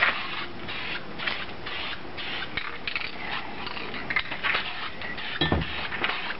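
Aerosol spray paint can hissing in a series of short spurts with brief gaps, giving a light coat. There is a low knock about five and a half seconds in.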